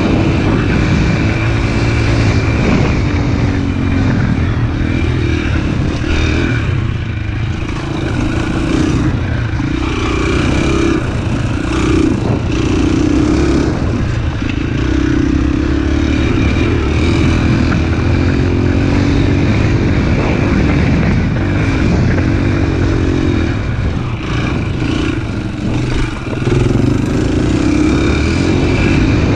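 A small pit bike's engine running under way on a dirt trail, its note rising and falling as the throttle opens and closes.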